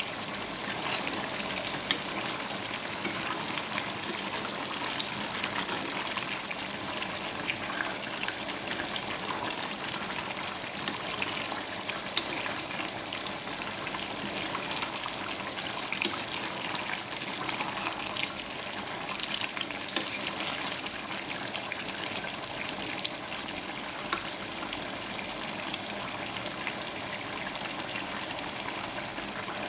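Coconut-milk sauce of a chicken Bicol Express simmering in a pan, bubbling steadily with many small pops. It is being boiled down until about half the liquid is left.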